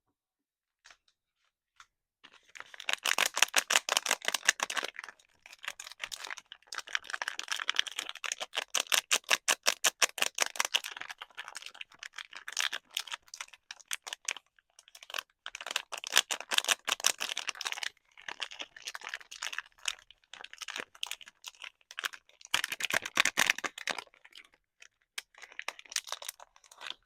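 Soap packaging being handled and unwrapped: bursts of rapid, crackling clicks separated by brief pauses.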